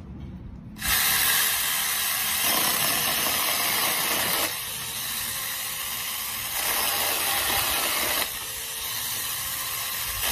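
Battery mini chainsaw cutting through a wooden batten. The harsh, noisy cut starts suddenly about a second in and grows louder and softer in turns every two seconds or so as the chain bites into the wood.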